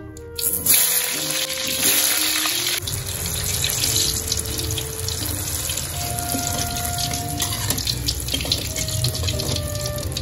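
Chunks of vegetable deep-frying in hot oil in a wok: a steady, dense sizzle that starts suddenly about half a second in, as the pieces go into the oil.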